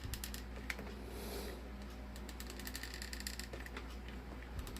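Light, irregular clicking and tapping as a hot glue gun is handled and glue is dabbed on, over a low steady hum.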